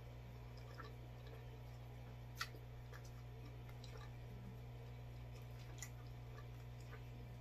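Faint wet eating sounds: chewing and the tearing of soggy, butter-soaked pizza crust, with a few small sharp clicks, the loudest about two and a half seconds in. A steady low hum runs underneath.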